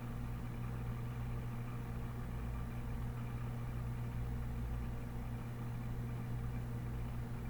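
Steady low hum with a faint hiss, unchanging throughout, with no distinct clicks or other events.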